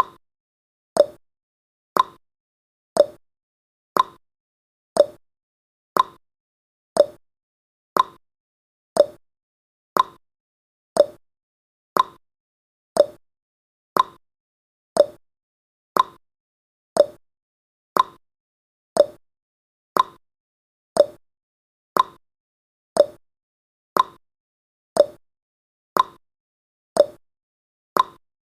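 Clock tick-tock sound effect of a countdown timer: one short tick every second, alternating between a lower and a higher tick.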